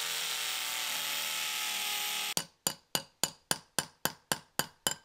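A power tool runs at steady speed for about two seconds and cuts off abruptly. A hammer then strikes a steel rebar bar about ten times in a fast, even rhythm, each blow ringing, driving it into the ground for a concrete footing.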